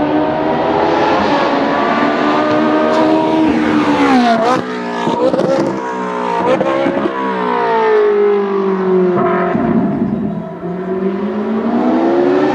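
Ferrari 458 Challenge's 4.5-litre V8 through straight pipes, very loud, revving high as it accelerates. About four and a half seconds in it brakes with a string of quick downshifts and throttle blips, then pulls hard again, with another lift and a fresh climb in revs near the end.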